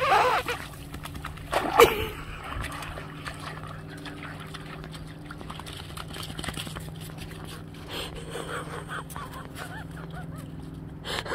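A dog splashing in shallow meltwater on river ice, with a loud splash at the start and another sharp one about two seconds in, then only faint sounds as it moves off across the ice.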